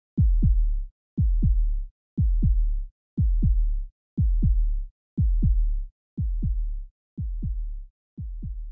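Heartbeat sound effect: a deep double thump, lub-dub, about once a second, fading over the last few beats.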